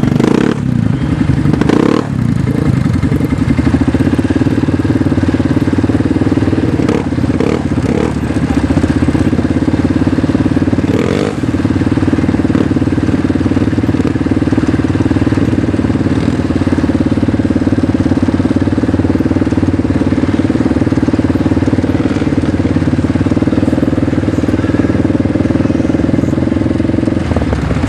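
Off-road vehicle engine running steadily at a fairly constant speed for the whole stretch, with a few brief knocks near the start and about a third of the way in.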